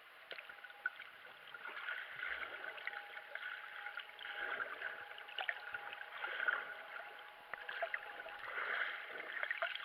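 Underwater sound picked up by a GoPro in its waterproof housing: a muffled, shifting water rush with scattered faint clicks and crackles, and a faint steady tone underneath.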